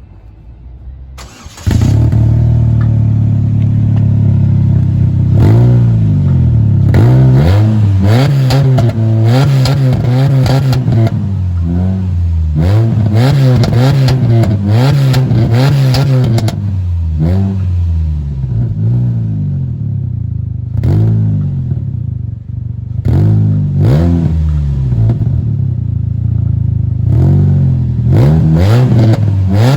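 Chevrolet Cavalier engine revved again and again, rising and falling, with rapid pops and crackles from the exhaust during the revs and a steady idle in between. The owner puts the crackle down to a rusted-through exhaust. The engine sound comes in suddenly about a second and a half in.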